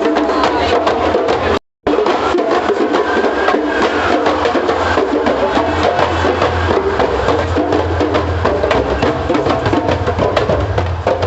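Percussion music with dense, rapid strikes, broken by a brief dropout to silence just under two seconds in.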